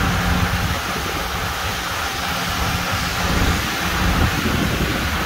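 Steady rain and wind noise over a low rumble, with a low steady hum that stops about a second in.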